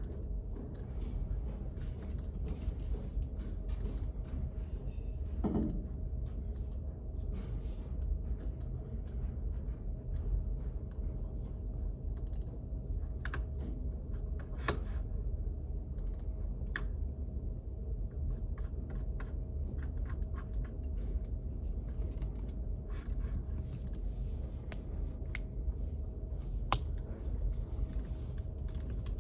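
Scattered computer keyboard typing, irregular key clicks over a steady low hum.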